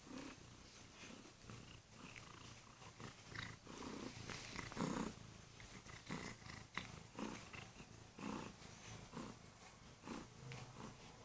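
Kurilian Bobtail cat purring close up, the rumble swelling and easing in a steady rhythm with each breath.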